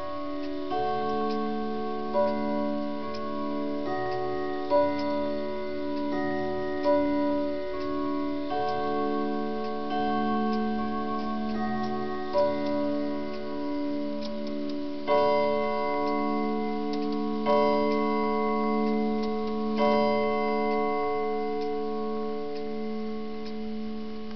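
A French longcase clock's brass tubular chimes playing a slow chime tune, each struck tube ringing on and wavering under the next. In the second half come three louder strikes about two and a half seconds apart.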